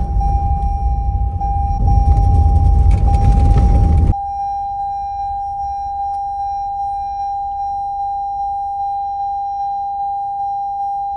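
A car's electronic warning chime dings steadily, one clear tone repeating about twice a second. For the first four seconds a loud low rumble runs under it, then cuts off suddenly, leaving the chime on its own.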